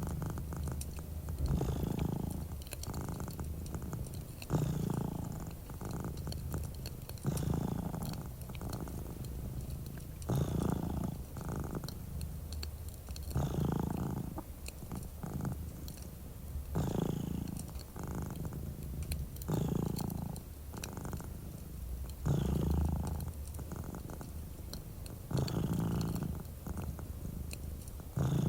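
Domestic cat purring close up, the purr swelling and easing with each breath about every three seconds, with light fireplace crackles underneath.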